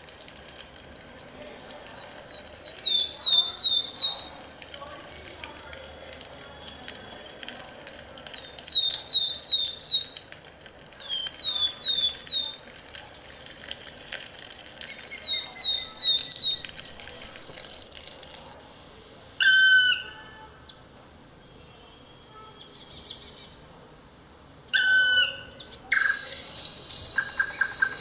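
Wild forest birds singing: a short phrase of quick, high, down-slurred notes repeated four times, then a different call twice in the second half.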